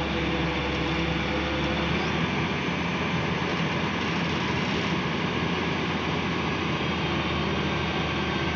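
Wheeled excavator's diesel engine running steadily under hydraulic work, digging and lifting a bucket of soil. Its low hum changes about two seconds in.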